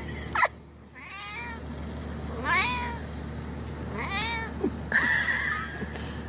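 Calico kitten meowing again and again: about three high, separate meows, each rising and then falling in pitch.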